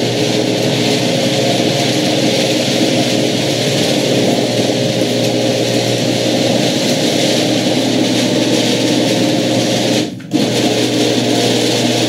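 Genie screw-drive garage door opener running as the sectional door rises along its track, a steady mechanical drone with a brief break about ten seconds in. The door's rollers and hinges have just been sprayed with lubricant to quiet them.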